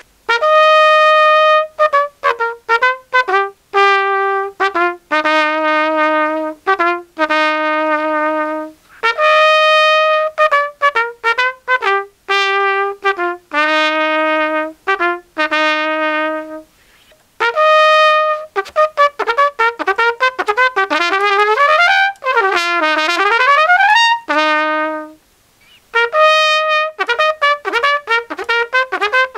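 Trumpet played first through a 3D-printed PLA plastic mouthpiece, then through a metal mouthpiece, with the same short phrase of held notes repeated after a brief gap about nine seconds in. Faster runs and lip slurs follow, including a quick sweep down and back up near the two-thirds mark. The player finds the metal mouthpiece a bit more brassy and the plastic one a little dead.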